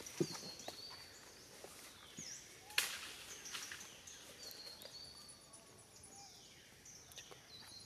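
Outdoor natural ambience with birds calling in short high whistles. A sharp click about three seconds in stands out above the background.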